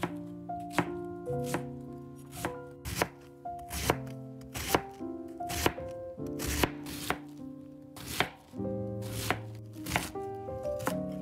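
Chef's knife shredding a wedge of white cabbage on a plastic cutting board: crisp crunching cuts, each ending in a knock of the blade on the board, about two strokes a second. Soft background music plays underneath.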